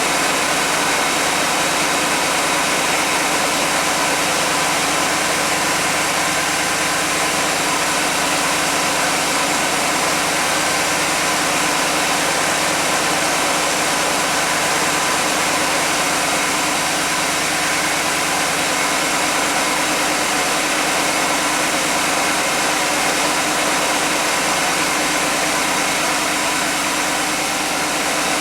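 1991 GMC Jimmy's engine idling steadily, with an even hiss over the running note, on an engine suspected of having a vacuum leak.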